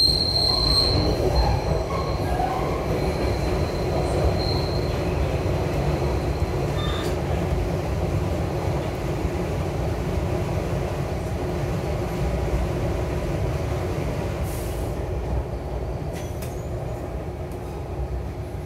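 SEPTA Broad Street Line subway train (Kawasaki B-IV cars) running through the tunnel: a steady low rumble of wheels on rail. A high wheel squeal sounds in the first second and briefly again about four seconds in. The rumble eases off gradually near the end.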